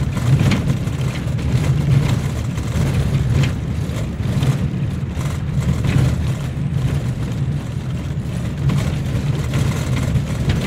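Engine drone and road rumble heard from inside a moving vehicle: a steady low rumble with a few faint knocks or rattles from bumps in the road.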